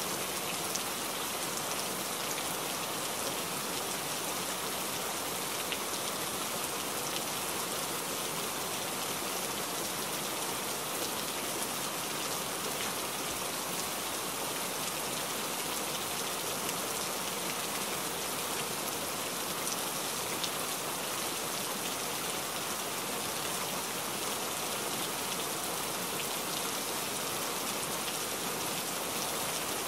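Rain hitting a truck's windshield, heard from inside the cab while driving: a steady hiss with scattered sharp ticks of drops.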